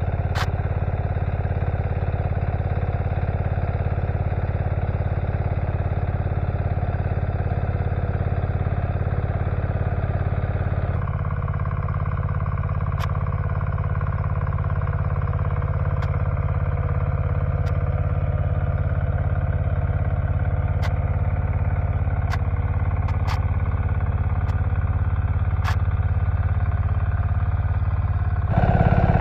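Walk-behind tractor's engine running steadily, its tone shifting abruptly about eleven seconds in and again near the end, with a few sharp clicks.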